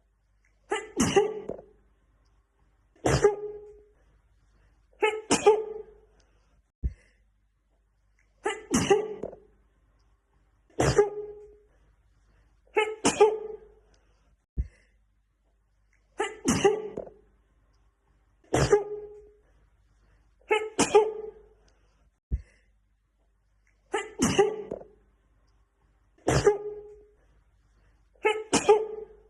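A woman sneezing again and again, about one sneeze every two seconds. The same short run of sneezes repeats as a loop, with a faint click every few sneezes.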